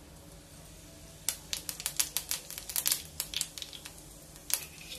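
Cumin seeds crackling in hot oil as they temper: a quick, irregular run of sharp pops starting about a second in, thinning out, with one more pop near the end. The crackle is the sign that the oil is hot enough for the tempering.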